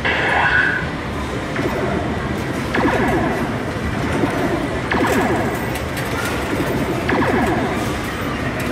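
Arcade din of coin-pusher and video-game machines playing electronic music and sound effects. A louder burst of effects with sharp clicks comes about every two seconds.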